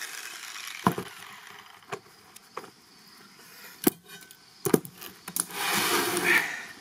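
A steel sword blade blank being handled and lifted out of a wooden stand after grinding: several sharp knocks and clanks about a second apart, then a loud scrape of about a second near the end.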